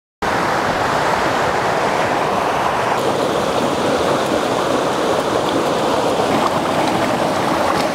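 Steady rushing of ocean surf.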